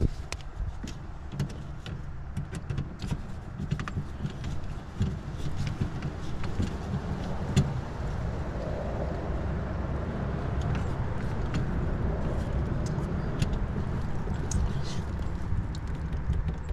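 Scattered light clicks and rattles of wires and connectors being handled inside a heat pump package unit's control compartment, over a steady low rumble.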